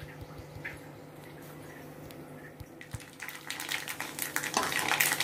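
Dried red chillies and mustard seeds frying in hot mustard oil in a wok, sizzling with scattered pops of the seeds crackling. About three seconds in, the crackle turns much louder and denser as a spatula stirs them.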